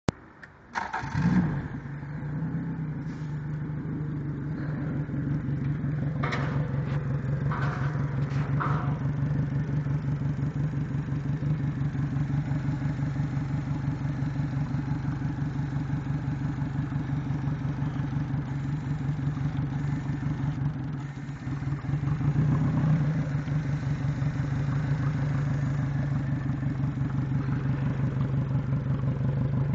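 Yamaha 90 outboard motor catching about a second in with a brief flare of revs, then idling with a rapid pulsing beat, dipping and picking up briefly about 21 seconds in. The owner puts its running down to dirty, bad fuel injectors after 1400 hours.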